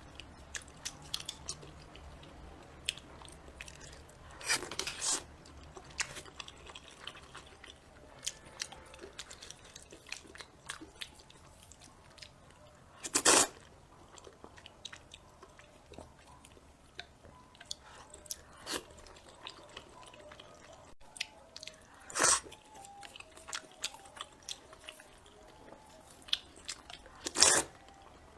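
Close-miked eating: a person chewing and biting food, with many small wet clicks and crunches and a few louder bursts spaced several seconds apart.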